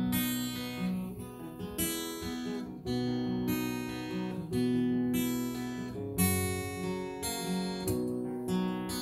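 Acoustic guitar strumming a slow chord progression, each strum ringing on into the next.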